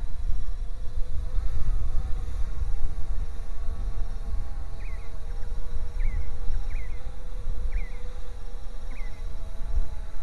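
Bayangtoys X16 brushless quadcopter's motors and propellers buzzing steadily overhead, under a loud low rumble of wind on the microphone. Five short high chirps come through the middle.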